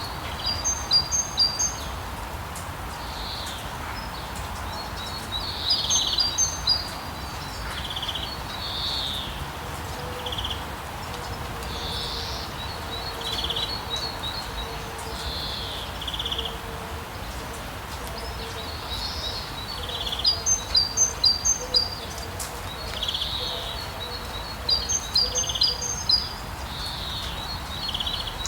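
Songbirds singing in repeated bursts of quick, high chirps over a steady hiss of rain falling on a street.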